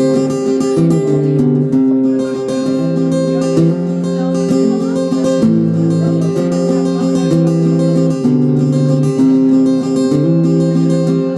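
Acoustic guitar strummed, with the chords changing every second or two.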